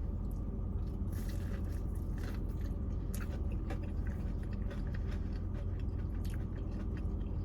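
A person chewing and biting into fried chicken, with small crunchy, squishy mouth sounds scattered through. A steady low hum runs underneath.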